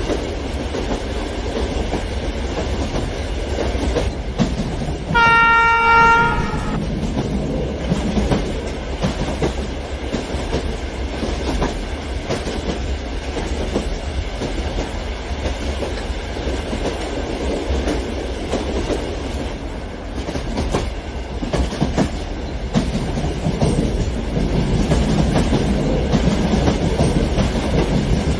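Large-scale electric model passenger train rolling along garden track with a steady rattle of wheels on rails. About five seconds in, its horn sounds once for about a second and a half on a single steady note.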